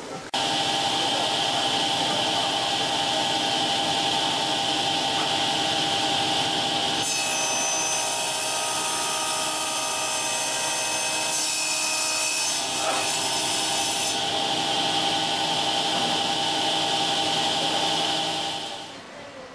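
Table saw with a circular blade for acrylic running at speed with a steady whine. For several seconds in the middle the blade cuts through a sheet of acrylic, adding a harsher, brighter sawing sound. The sound falls away near the end.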